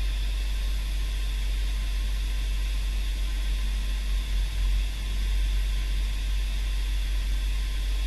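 GMC Acadia's 3.6-litre V6 idling steadily at about 1,000 rpm, heard from inside the cabin: a low, even rumble with a steady hiss over it.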